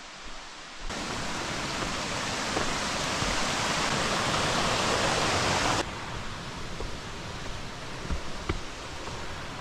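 Small mountain creek cascading over mossy rocks, a steady rushing of falling water that starts abruptly about a second in and cuts off abruptly about six seconds in. Before and after it, a quieter forest background with a few faint ticks.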